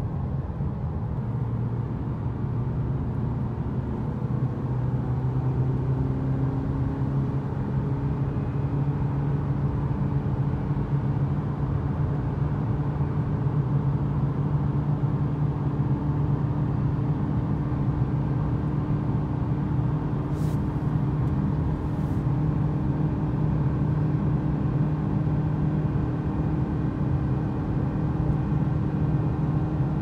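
Car driving through a road tunnel, heard from inside the cabin: a steady engine and tyre drone whose pitch rises slightly a few seconds in.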